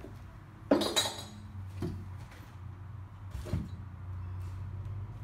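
Metal hand tools clinking and knocking against each other and against metal: one sharp ringing clink a little under a second in, the loudest, then a couple of quieter knocks, over a low steady hum.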